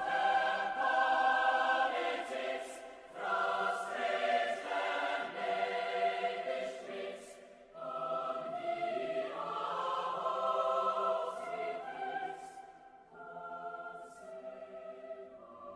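Background choral music: a choir singing long held chords that change every second or two, growing softer near the end.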